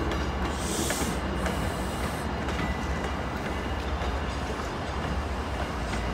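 MBTA commuter rail train of bilevel coaches moving through the yard: a steady low rumble with faint high wheel tones, and a brief hiss about a second in.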